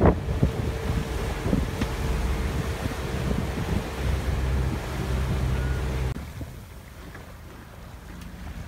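Wind buffeting the microphone and water rushing past a sailing yacht under way, with a steady low mechanical hum that cuts off suddenly about six seconds in, leaving quieter wind and water.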